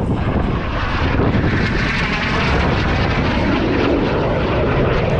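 Jet aircraft flying past overhead at an airshow: a loud, steady roar of engine noise.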